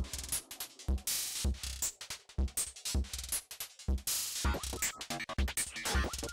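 Electronic background music with a drum-machine beat: a kick drum about twice a second with sharp noisy hits above it, and stepped synth notes coming in about halfway through.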